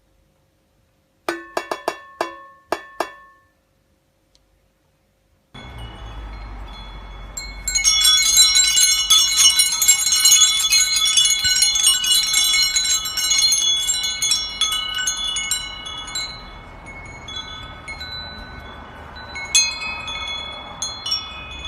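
Wind chimes ringing: a few separate strikes about a second in, then after a short pause a dense, continuous tinkling over a low rumble.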